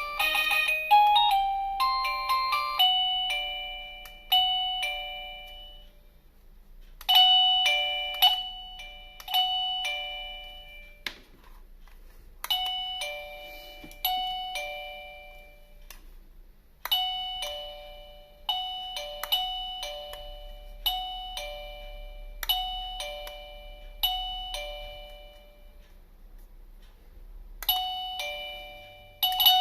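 Wireless doorbell receiver playing its electronic chime tunes: a quick run of notes at the start, then bell-like chime notes about once a second, each ringing out and fading, in several runs with short pauses between them.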